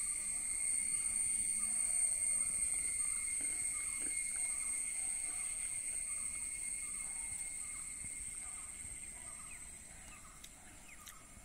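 Steady high-pitched insect drone, swelling in the first couple of seconds and fading away toward the end.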